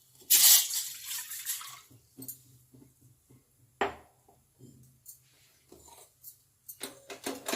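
A cup of water poured into a cooking pan, a brief rush that fades over about a second. A sharp metal clink follows a few seconds later, with lighter knocks of kitchen utensils near the end.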